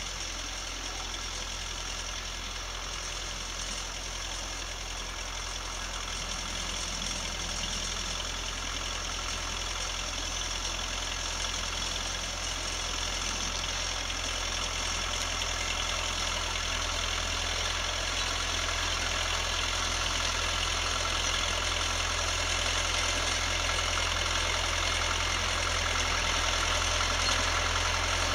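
Belarus MTZ-50 tractor's four-cylinder diesel engine running steadily under load while pulling a ring roller, growing slowly louder.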